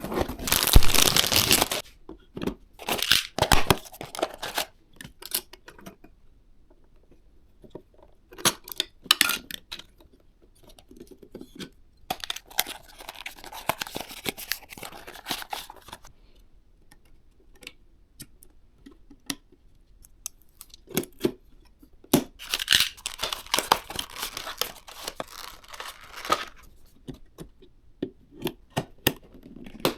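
PC part packaging being torn open and handled: several long bursts of tearing and rustling, the loudest in the first couple of seconds, with light clicks and taps between them.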